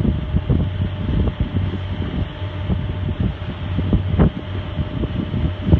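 Wind buffeting the phone's microphone in irregular gusts aboard a moving sailing catamaran, with a steady low hum underneath.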